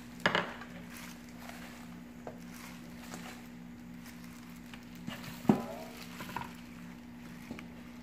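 Crown daisy greens being dropped into a pan of hot water and turned with metal tongs to blanch them. A few sharp clinks of metal on the pan and bowl come over a steady low hum.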